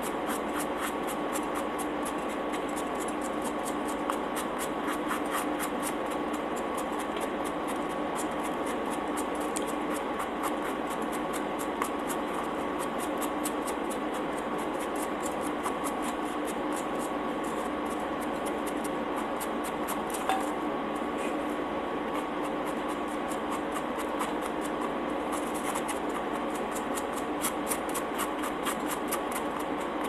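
A steady hum with two steady tones and fast, even ticking in the treble runs throughout. Over it are faint scratching and rubbing sounds of hands tearing a soft pretzel pizza crust, with a single small click about twenty seconds in.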